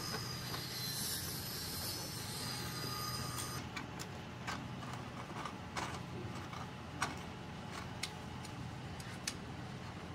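A steady high-pitched hiss with a faint whine that cuts off abruptly a few seconds in, followed by scattered sharp clicks of a hand tool and metal parts as an aluminium rail base and flat-plate jig are fitted together.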